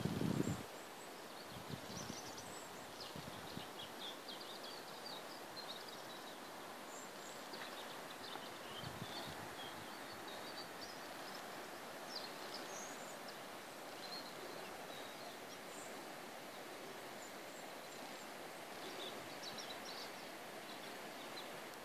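Outdoor ambience: a steady even background noise with scattered short bird chirps. A brief low thump comes right at the start, with a few fainter low bumps after it.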